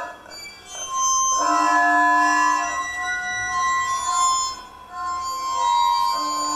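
Long strings of a sound installation ringing in steady, overlapping drone tones rich in overtones. The sound drops away briefly just after the start and again a little past the middle, and new sustained tones come in each time.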